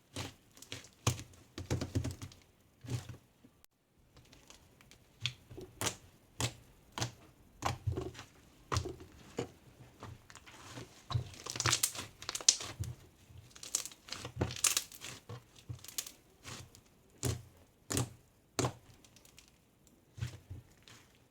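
Irregular crinkling and clicking from something being handled, in short uneven bursts that are densest a little past halfway.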